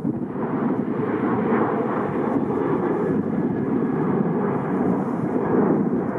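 Steady rushing noise of a jet airliner's engines, mixed with strong wind buffeting the microphone.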